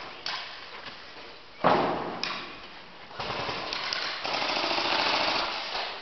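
Airsoft gun firing: a loud sudden crack about a second and a half in, then from about three seconds a fast mechanical rattle of full-auto fire that runs on in long bursts.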